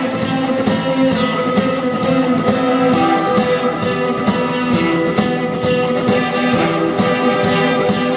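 Rock band with a symphony orchestra playing an instrumental passage: guitar over held orchestral notes and a steady drum beat.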